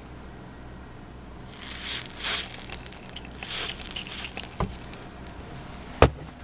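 Aerosol silicone spray hissing in two short bursts onto the squeaking joints of a Wonder Core Smart ab exerciser, followed by a knock and a sharp click about six seconds in.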